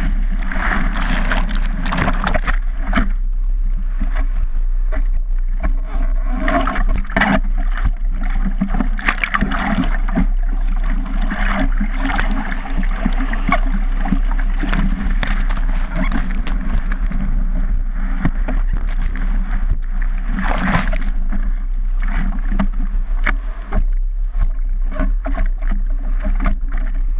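Water rushing and splashing around a surfboard-mounted GoPro Hero 3, heard through its sealed waterproof housing, with frequent sharp splashes and knocks of water hitting the case over a steady low rumble.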